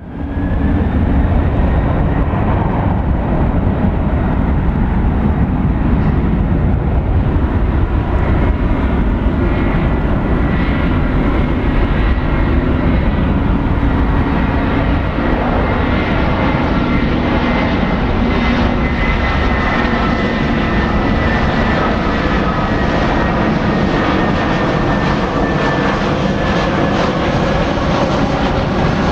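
Airbus A320-200 airliner on landing approach with gear and flaps down, its twin jet engines running at approach power. A steady, loud rumble with a high whine that slowly drops in pitch as the plane passes.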